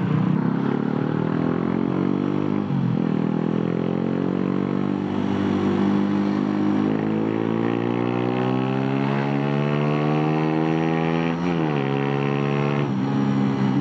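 Suzuki Raider 150 carb's single-cylinder four-stroke engine through an Apido aftermarket exhaust pipe, pulling hard under acceleration. The pitch rises steadily, drops sharply at each upshift about three seconds in and again near the end, then climbs again.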